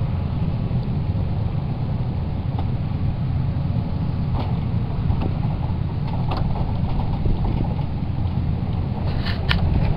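An engine idling steadily, a low even drone, with a few short knocks near the end.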